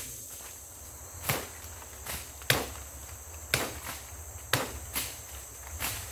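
Sharp chopping strokes of a blade into a woody stem, about one a second, over the steady high drone of forest insects.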